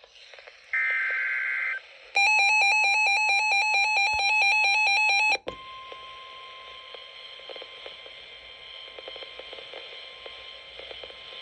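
Emergency Alert System relay: a roughly one-second burst of SAME header data noise, then about three seconds of the loud electronic EAS attention tone, which cuts off abruptly. Crackling radio static with a faint steady tone underneath follows.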